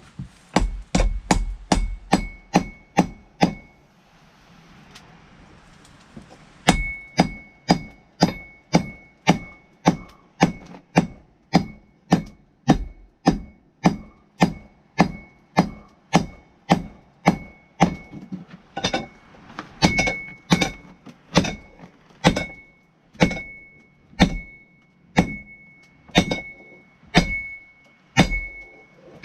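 Blacksmith's hammer striking hot steel on an anvil at about two blows a second, each blow leaving a high ringing tone from the anvil. The hammering stops for about three seconds soon after the start, then resumes and keeps up a steady rhythm.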